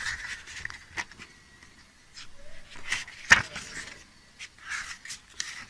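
Paper rustling and light clicks as a small paper booklet from a CD album package is handled and its pages turned, with one sharper tap about three seconds in.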